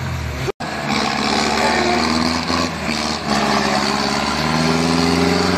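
Daihatsu Taft 4x4's engine running hard under load in mud, its pitch shifting and rising near the end, over a steady hiss. A brief break about half a second in.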